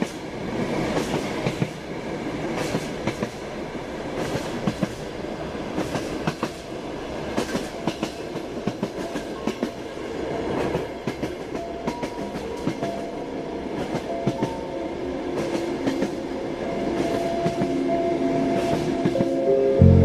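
Train running on rails, a rough rumble with many irregular clicks of wheels over the track. Steady tones come in about halfway through and grow louder toward the end.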